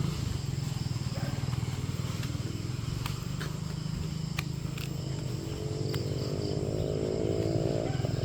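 Outdoor background noise: a steady low rumble with a few light clicks. From about five seconds in, a faint pitched drone rises slowly in pitch.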